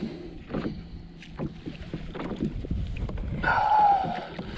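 Knocks, clicks and rattles of fishing gear and hands against a kayak hull while a bass is played on the line, with a brief wavering higher tone near the end.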